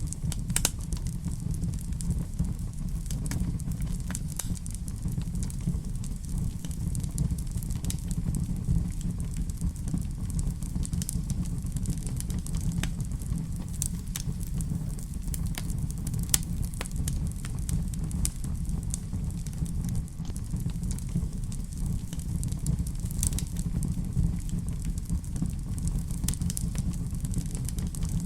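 Wood fire burning in a fireplace: frequent irregular crackles and sharp pops over a steady low rumble.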